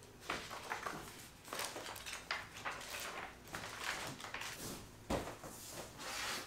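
Pages of a sketchbook being flipped through by hand: a run of quick, irregular papery rustles and flaps.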